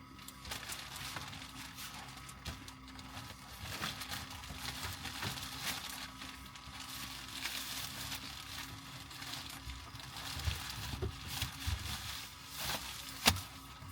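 Rustling and scattered clicks of things being handled while a car interior is fitted out for sleeping, with a sharp click near the end, over a steady low hum.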